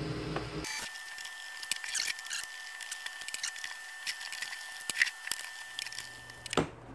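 Screwdriver turning out Torx screws from a plastic shop-vac motor housing: a scatter of small clicks and scrapes of the tool in the screw heads, over a faint steady high whine.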